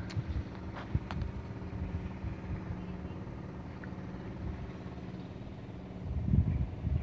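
A steady low engine drone, with a few low thumps about six seconds in.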